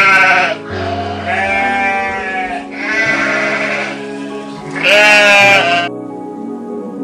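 An animal calling four times in drawn-out, bleat-like cries, the first and last the loudest, over steady background music.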